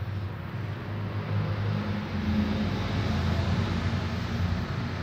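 A motor vehicle engine running steadily with a low hum, growing a little louder about a second in.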